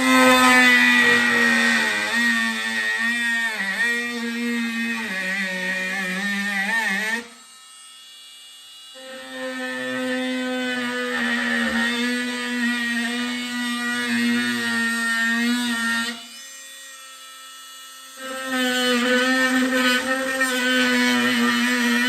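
Cordless oscillating multi-tool running in three bursts of several seconds each, switched off briefly in between. It gives a steady, high buzzing hum whose pitch sags briefly now and then.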